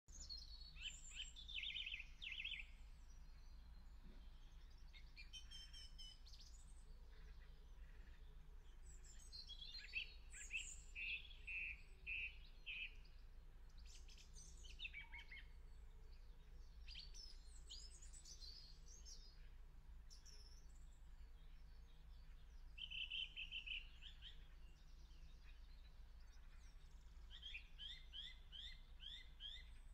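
Song thrush singing faintly: short phrases of quickly repeated high notes, with pauses between them, over a low steady hum.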